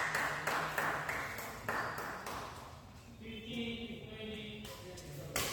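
Badminton doubles rally: a feathered shuttlecock is struck back and forth by rackets in a series of sharp, irregular pings and smacks. Players' feet thud on the court between shots.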